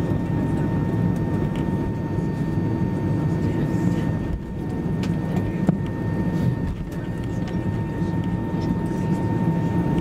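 Cabin noise inside an Airbus A320 taxiing: a steady low hum of the engines and airframe, with a faint constant high tone.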